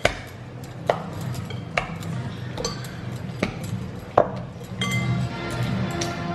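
Sharp clinks of metal against a mixing bowl, about one a second, as dough is scraped and gathered in the bowl. Background music plays underneath and becomes fuller near the end.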